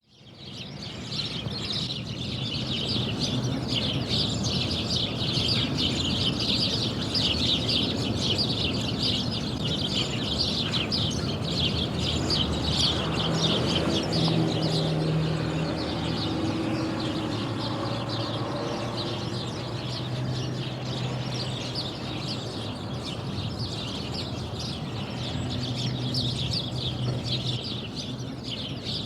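Countryside ambience: many birds chirping and calling continuously, over a low hum of light road traffic that swells in the middle, as a vehicle passes. The sound fades in over the first second.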